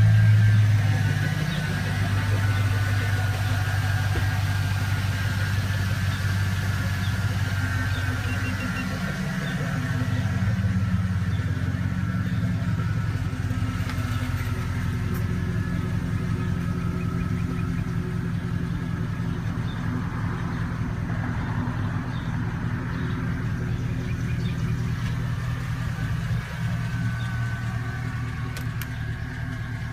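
2002 Chevrolet Avalanche engine idling steadily after being started by the remote starter, with its pitch wavering briefly about nine seconds in.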